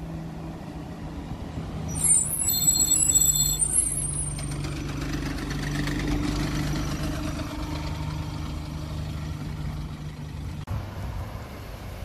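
Single-deck bus engine running as the bus drives slowly past close by, with a brief high-pitched brake squeal about two seconds in, followed by the rumble and hiss of the bus going by.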